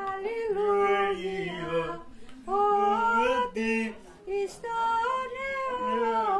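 A woman singing a slow, unaccompanied melody, holding long notes in short phrases with brief pauses between them.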